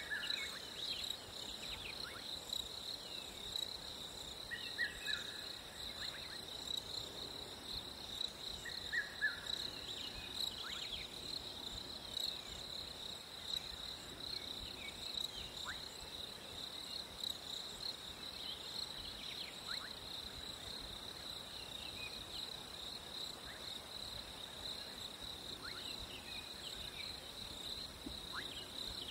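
Crickets trilling in one continuous, steady high-pitched chorus, with brief chirps and short falling calls breaking in now and then.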